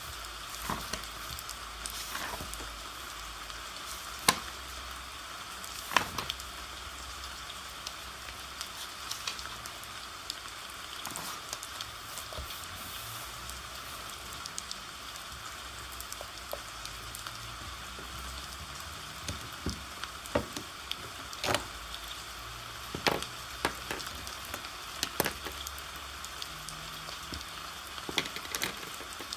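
Steady rain hiss with scattered sharp ticks of single drops, over a low rumble.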